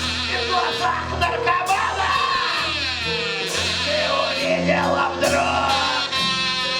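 Live rock band music: a loud, shouted vocal line over bass and drums.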